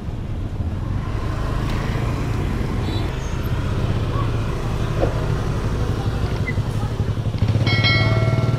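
Motorbike engine running close by amid street noise, getting louder about seven and a half seconds in, with a steady high tone lasting about a second near the end.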